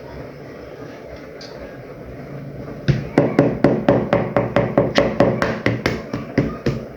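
Rapid, even tapping against a mixing bowl, about five sharp taps a second, each with a short ring, starting about three seconds in and still going at the end.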